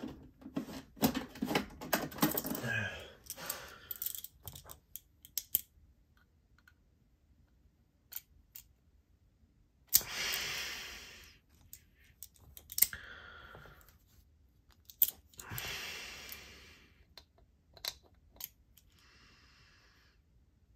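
Sharp metal clicks and taps of a hand tool working at the pocket-clip fastener of a WE Knife Arsenal folding knife. They come thick and fast in the first few seconds and are scattered after that. Two long breathy exhales come about ten and fifteen seconds in.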